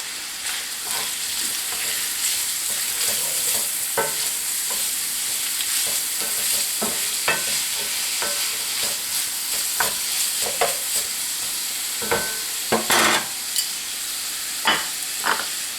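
Chopped onion and browned sausage sizzling in a cast iron skillet, with a steady hiss. A utensil stirring the food clicks and scrapes against the pan at irregular moments.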